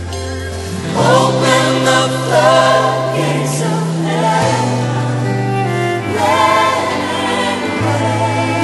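Contemporary worship song: a choir singing over a band, with held bass notes that step to a new pitch every second or two.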